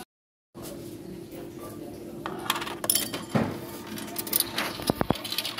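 Coins clinking and clattering into a self-checkout's cash-payment coin slot, a quick run of sharp metallic clicks starting about two seconds in.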